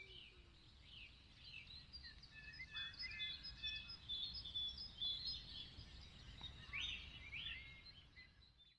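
Small birds chirping and singing, many short high calls and trills overlapping, over a faint low rumble.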